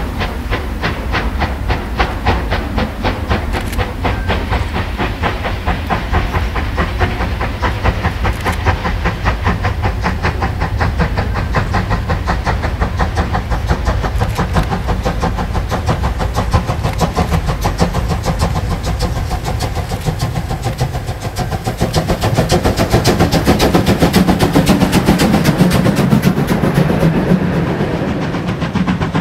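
Class 52.80 steam locomotive running with a freight train: rapid, evenly spaced exhaust beats over the rumble of the train, with hiss. The rumble grows louder and heavier about three quarters of the way through.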